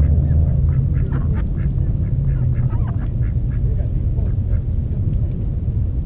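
Domestic ducks quacking, a string of short quacks that comes thick at first and thins out after about three seconds, over a steady low rumble.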